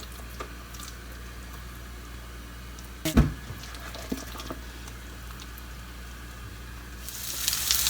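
Faint background hum with a single knock about three seconds in. Near the end, patties start sizzling as they fry in a hot oiled pan, and the sizzle swells quickly.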